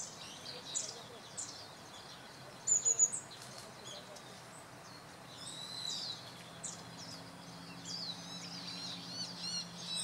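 Birds chirping: a run of short, high, downward-sliding chirps, with a louder burst of shrill high calls about three seconds in and quick repeated chirps near the end. A faint steady low hum comes in past the middle.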